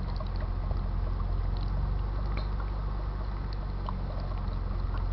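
Car engine idling steadily, a constant low hum, running to keep the battery charged under the electrolysis load. Over it come faint scattered ticks and bubbling from hydrogen-oxygen gas passing through the HHO cell's water bubbler.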